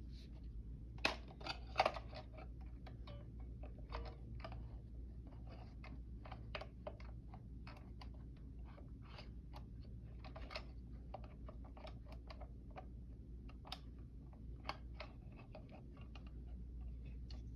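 Faint, irregular small clicks and rustles of an alarm clock and its packaging being handled and unpacked, with two louder knocks about one and two seconds in.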